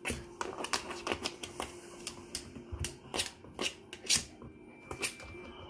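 A small dog, a Shih Tzu–Yorkie mix, pawing and scrabbling under a kitchen cabinet for a ball: a quick, irregular run of claw clicks and scrapes on the hardwood floor and cabinet kickboard, the loudest a little past four seconds in.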